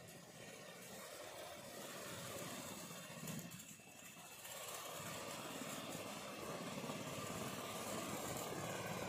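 Mahindra Arjun Novo 755 DI tractor's diesel engine running with its banana cutter working. The sound dips briefly about three and a half seconds in, then runs louder and steadier from about five seconds on.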